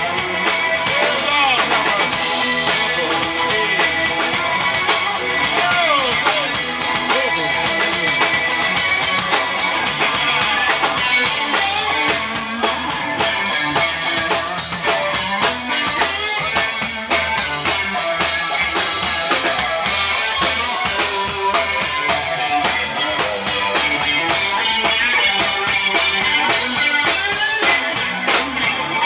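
Live blues band playing: an electric guitar carries a lead line with bent, gliding notes over electric bass and a drum kit.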